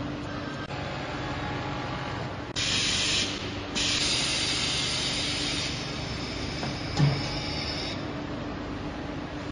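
Loud compressed-air hissing from a glass laminating machine's pneumatic pad heads over a steady machine hum. The hiss starts about a quarter of the way in, breaks off for a moment, then runs on and fades out near the end, with a single knock partway through.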